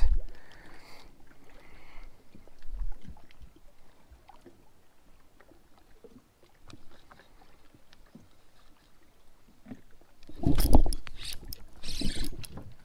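Faint, quiet sounds on a fishing boat on calm water, then about ten seconds in a loud knock and rustle as the rod and the chest-mounted camera are handled while a bass is hooked, followed by a hiss with a quick run of clicks.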